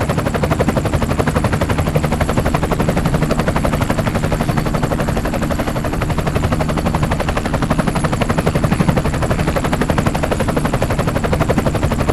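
Helicopter in flight: a rapid, steady chop of the rotor blades over a low engine drone.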